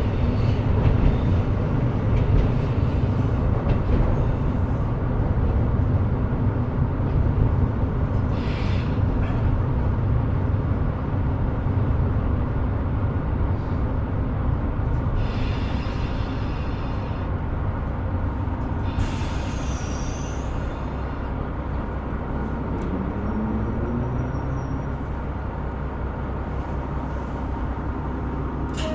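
Cabin running sound of a KiHa 125 diesel railcar: diesel engine and wheels on the rails, easing off and getting gradually quieter. Short hissing bursts come about fifteen and nineteen seconds in, and a brief rising tone follows a few seconds later.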